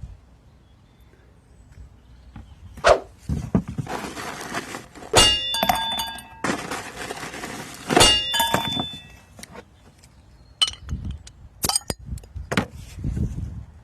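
Edited-in sound effects: a series of sharp knocks and clinks. Two of them are followed by a ringing of several tones, with a hiss between them.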